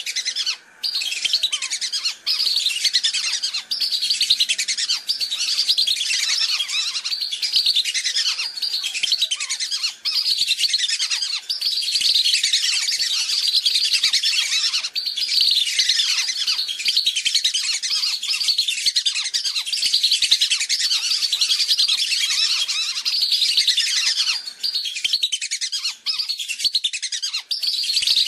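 Whistling duck (belibis) lure-call recording: a flock of many overlapping high, whistled calls, a dense chorus of short falling notes that runs on without a break.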